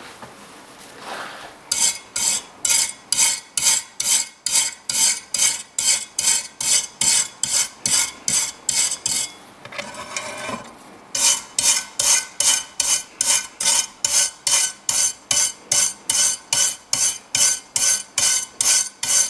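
Brass wire brush scrubbing back and forth across the teeth of a circular saw blade, about two strokes a second, to clear softened resin build-up. The strokes stop for a couple of seconds midway, then carry on.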